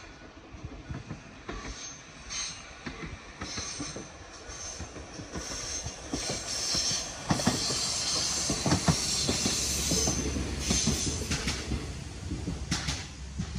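Train passing over a level crossing, its wheels clicking over the rail joints and squealing high-pitched. It grows louder about halfway through and is loudest a few seconds before the end.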